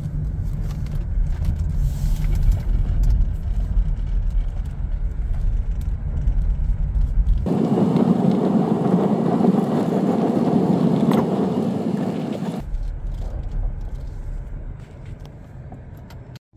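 Car road noise heard from inside the cabin while driving: a steady low rumble. About seven and a half seconds in, it gives way for about five seconds to a harsher, higher rushing noise, then the rumble returns and fades near the end.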